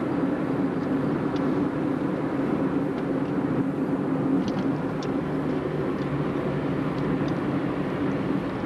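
Steady engine and road noise of a car driving along a highway, heard from inside the cabin.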